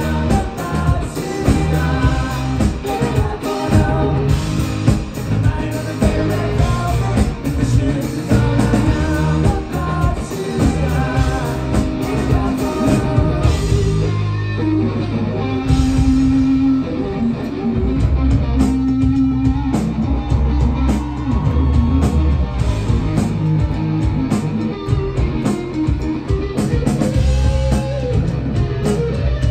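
Live rock band playing: electric guitars, bass guitar and drums with singing, heard from the audience in a club. About halfway through the band thins out briefly to a held low note, then comes back in full.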